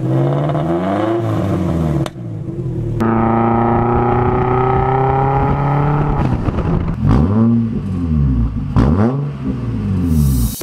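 Car engines revving through their exhausts in a string of short clips: free revs rising and falling, a stretch held at a steady, slowly climbing pitch, then a run of quick rev blips, ending in a short hiss.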